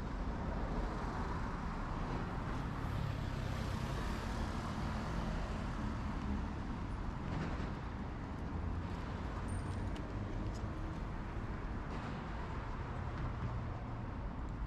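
Steady road traffic on a ten-lane city boulevard, with vehicles passing continuously.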